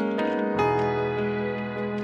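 Background music: a slow instrumental with held notes, the chord changing about half a second in.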